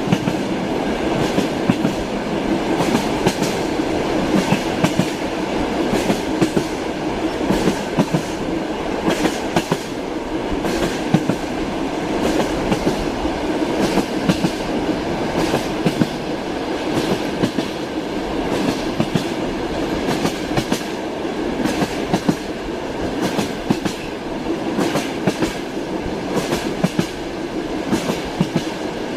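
Moving train's wheels clacking over rail joints, with a steady rolling rumble and frequent short clicks.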